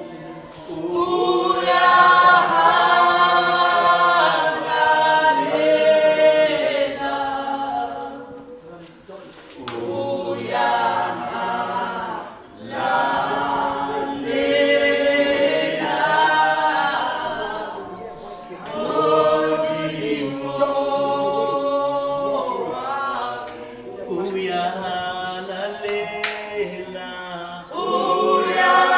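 A congregation singing a worship song together, in sung phrases with short breaks about nine and twelve seconds in.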